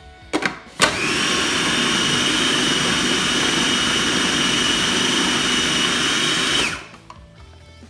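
Two sharp clicks, then a small electric food processor runs for about six seconds, blending smoked mackerel and cream cheese into pâté, with a steady high whine over the churning, and stops near the end.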